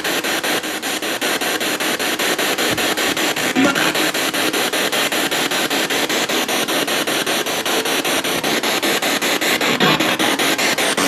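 Spirit box scanning through radio stations: a steady hiss of static chopped into rapid, even pulses several times a second.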